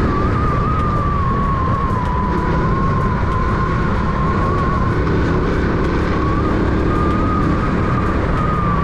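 Suzuki Smash 115 underbone motorcycle's single-cylinder four-stroke engine running at a steady cruise, with a steady whine that wavers slightly in pitch, under heavy wind rumble on the microphone.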